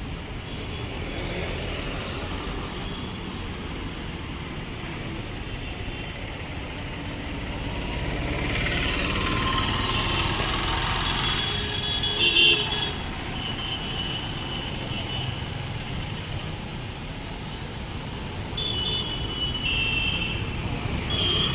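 Busy street traffic: a steady hum of engines, with a vehicle passing close about halfway through and several short horn toots.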